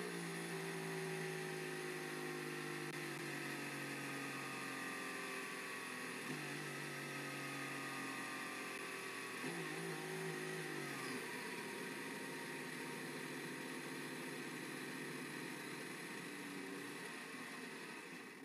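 Formula 1 car's turbocharged V6 engine running at low revs, its note sagging slowly and stepping abruptly twice, about six and nine seconds in.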